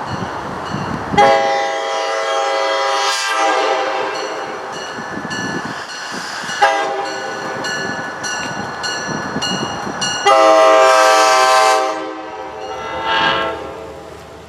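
Nathan K5LA five-chime air horn on a SEPTA Regional Rail train, sounding a series of blasts over the rumble of the passing train: two long ones, the loudest about ten seconds in, and a short final toot. It fades away near the end.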